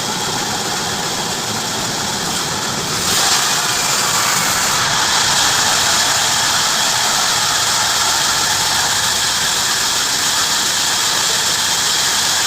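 Heavy-duty bandsaw running and cutting through wood, a steady high noisy sound that gets louder and brighter about three seconds in.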